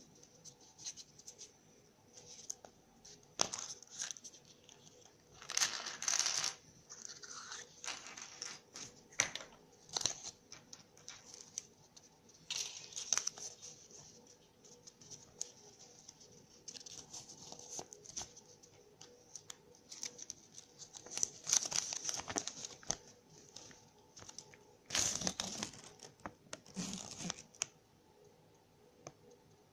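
Foil wrapper of a Kinder Surprise egg being torn and crinkled open by hand, in irregular rustling bursts with sharp clicks.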